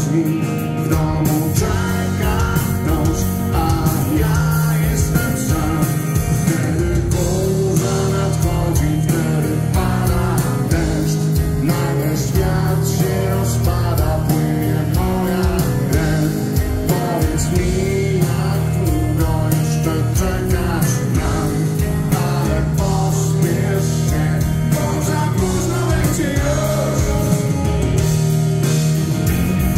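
Live rock band playing: electric guitars, bass guitar and drum kit, with a male lead vocalist singing over them.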